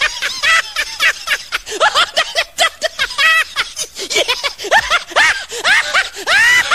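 A person laughing in a rapid run of short, high-pitched giggles.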